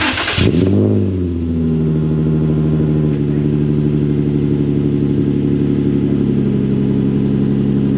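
Car engine cranking briefly and catching, its revs flaring up and dropping within the first second or so, then settling into a steady idle that eases down a step about three seconds in. It is heard through a freshly installed ISR Performance Y-pipe exhaust.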